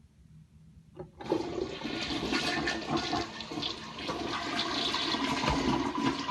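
Toilet flushing: a short click about a second in, then a loud rush of water that runs on and begins to ease near the end.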